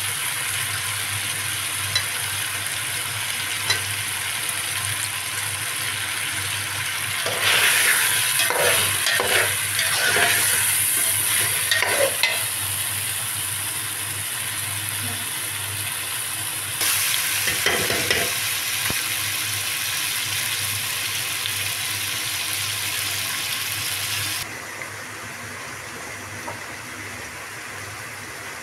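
Chicken with ginger-garlic paste, green chilli and tomatoes sizzling in a steel pot over a gas flame, with louder stretches of stirring and scraping twice in the middle. The sizzle gets quieter a few seconds before the end.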